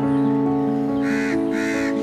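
Background music with long held notes; about a second in a crow starts cawing, two harsh caws in quick succession.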